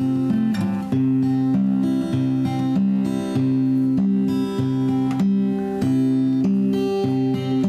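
Acoustic guitar music: strummed chords, changing every second or so.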